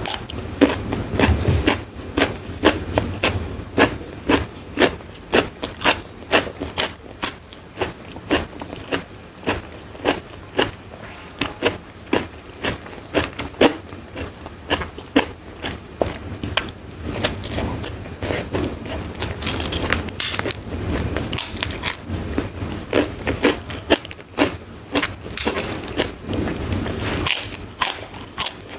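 A person eating crunchy food close to the microphone: biting and chewing with sharp, crisp crunches about two to three a second throughout.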